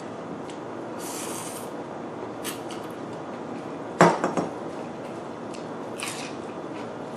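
Eating utensils clinking against a dish: one sharp clatter about four seconds in followed by a few quick rattles, with lighter clicks before and after, over a steady background hiss.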